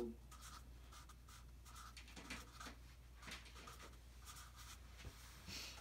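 Black marker writing on paper: a string of faint scratchy strokes, with one louder stroke near the end.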